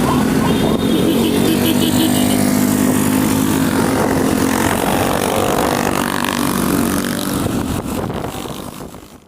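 A motor vehicle engine running steadily, fading out near the end.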